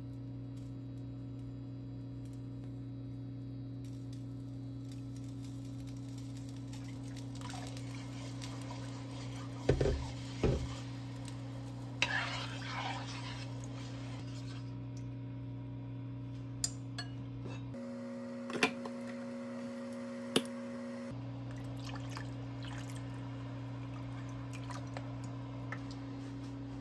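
Steady electrical hum from an induction cooktop heating a pan of soy sauce brine, which changes pitch for a few seconds about two-thirds of the way through. A spoon stirs the liquid, with a few sharp knocks and clinks against the pan.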